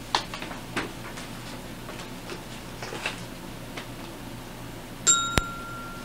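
A single clear bell-like ding about five seconds in, ringing for about a second, with a sharp click just after it starts. Under it runs the steady hiss and low hum of a tape recording, with a few faint clicks and rustles.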